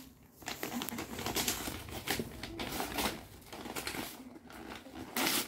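Gift-wrapping paper on a large box rustling and crinkling as hands handle it and start to tear it open, in irregular rustles with a louder rustle near the end.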